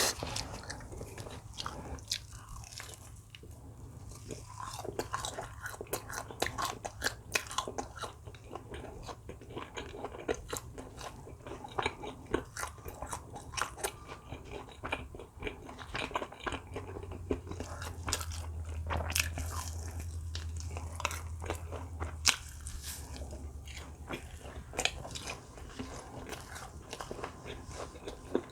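Close-miked eating: a person biting and chewing food, with frequent short crisp crunching clicks throughout.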